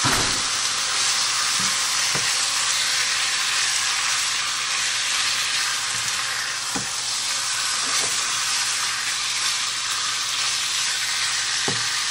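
Cubed chicken sizzling steadily as it fries in oil in a skillet on medium-high heat, with a few light clicks of stirring.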